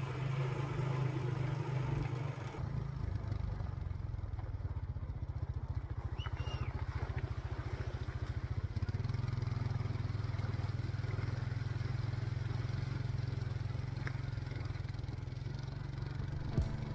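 ATV engine running steadily under way, a low, even drone with a fast regular pulse, while the quad is ridden over a rough dirt track.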